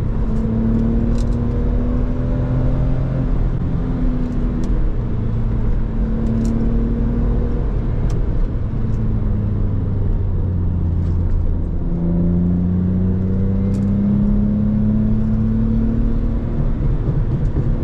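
Lexus IS300's 2JZ-GE inline-six pulling hard under acceleration. Its note climbs with revs and drops back at the gear changes several times, with one long climb about twelve seconds in.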